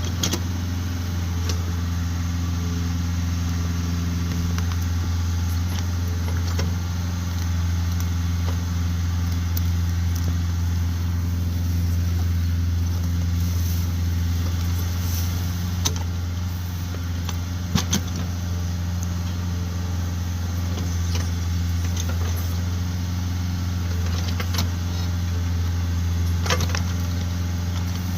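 Kubota tractor's diesel engine running steadily, with scattered metallic clanks and rattles.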